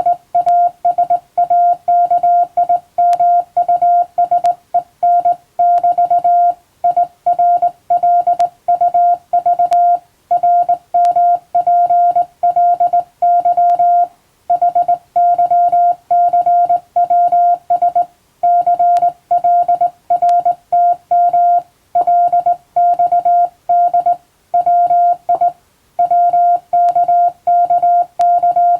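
Morse code (CW) sent as a single steady mid-pitched beep keyed on and off in quick dots and dashes, in runs of characters broken by short pauses between words: English-text code practice for receiving.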